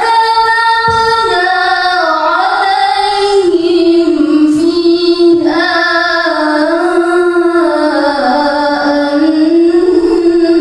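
A young woman's voice chanting Quranic recitation (tilawah), with long held notes that glide and waver through melodic ornaments.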